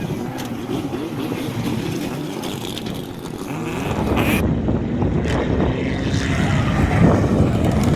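Rallycross car engine revving hard, its pitch climbing and dropping through gear changes, growing louder and loudest about seven seconds in.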